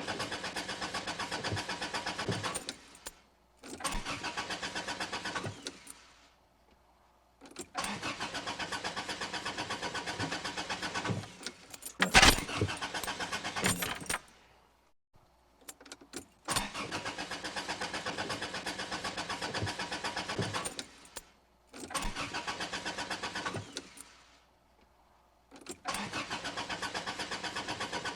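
Car starter cranking the engine over and over, about six tries of a few seconds each with short pauses between, without the engine catching: a car that won't start. One try has a brief, louder burst about twelve seconds in.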